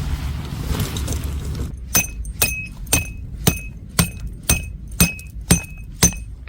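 Sharp clinks with a short ring, struck evenly about two times a second, nine in a row, starting about two seconds in after a steady low rumble.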